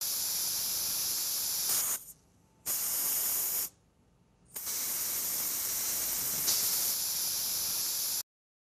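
Aerosol refill can hissing as it is pressed onto the tank of a Mini JetCare anti-barking device to fill it with spray. There are three pushes: about two seconds, a short one of about a second, then a longer one of about three and a half seconds.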